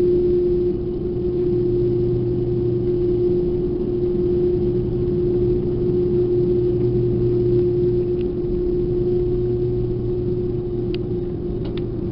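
Airbus A330-300 jet engines and cabin noise heard from inside the cabin as the airliner moves on the ground before takeoff: a steady drone with a constant low tone, neither rising nor falling.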